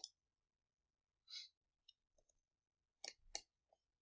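Near silence with a few faint computer mouse clicks: one at the start and two in quick succession about three seconds in, with a short soft hiss in between.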